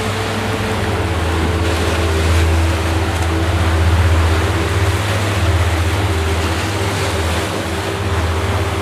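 Ocean surf washing up a sandy beach as a steady rushing noise. A strong, constant low hum lies underneath it.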